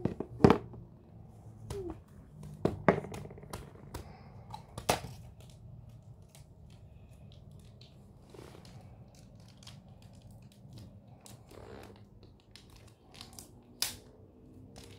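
Small plastic toy figures, a plastic capsule and their packaging being handled and set down on a cardboard box: a string of clicks and knocks, loudest in the first five seconds, then softer handling noises, with one sharp click near the end.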